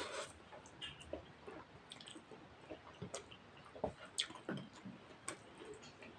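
Close-up eating sounds of rice and mutton curry: wet chewing with irregular soft smacks and clicks of the mouth, after a louder burst right at the start.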